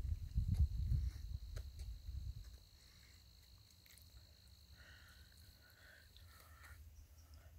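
An insect trills steadily at a single high pitch, stopping a little before the end. A low rumble on the microphone is louder for the first two seconds or so, then dies away.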